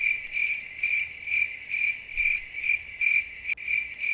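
Cricket chirping sound effect: a steady high chirp repeating about three times a second. It is the comedy 'crickets' cue for an awkward silence after a joke.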